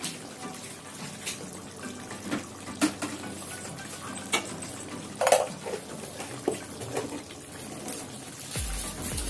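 Thick chicken curry gravy simmering in a pan, bubbling with irregular pops and plops, the loudest about five seconds in. Music with a steady bass beat comes in near the end.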